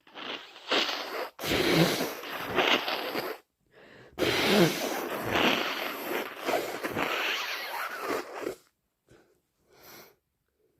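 A person blowing a very snotty, congested nose hard, in two long blows a little under a second apart, each with several forceful pushes. A couple of short faint sounds follow near the end.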